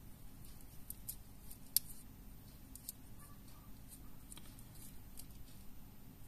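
Faint handling of a homemade foam mandula lure being assembled: small, scattered clicks of the metal ring and hook against the foam body, with one sharper click about two seconds in.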